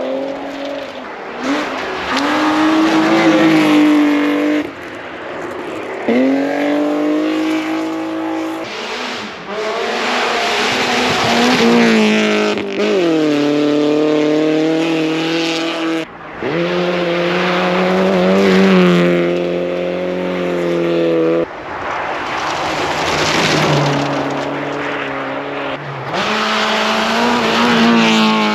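Rally cars driven flat out past on a special stage, one after another. Each engine revs high, its pitch climbing and dropping through gear changes. There are several abrupt switches from one car to the next.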